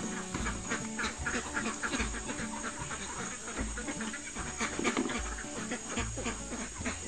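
A flock of domestic laying ducks quacking repeatedly in many short calls, with background music underneath.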